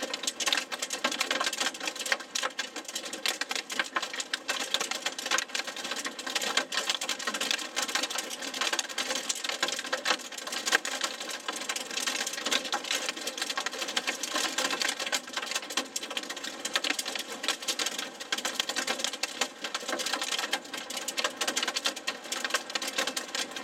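Hail and heavy rain hitting a car's roof and windshield, heard from inside the car: a dense, rapid, steady clatter of small impacts.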